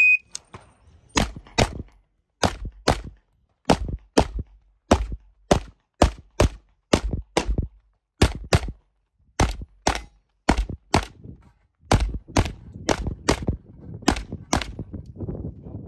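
A short electronic shot-timer beep, then about two dozen gunshots fired in quick pairs roughly a third of a second apart, with brief pauses between pairs: a practical-shooting (IPSC) stage being run against the timer.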